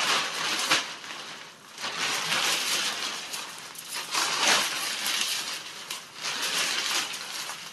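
Shower curtain rustling as it is unfolded and shaken out, in several swishes of fabric.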